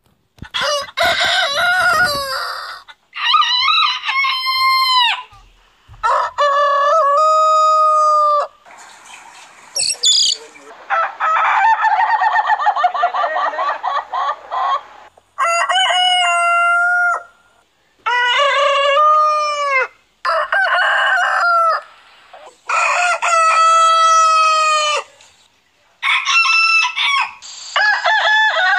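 Different roosters crowing one after another, about ten crows in all, each lasting one to two seconds, with one longer crow of about four seconds around the middle.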